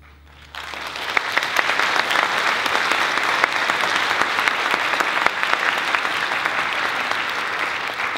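Audience applauding, breaking out suddenly about half a second in and carrying on as steady, dense clapping.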